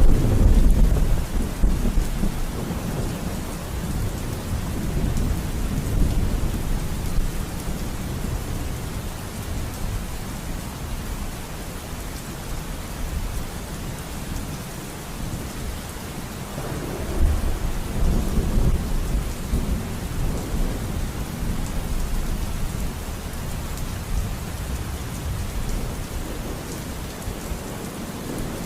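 Thunderstorm: steady rain with a sudden clap of thunder at the start that rumbles on for several seconds, then a second long roll of thunder about seventeen seconds in.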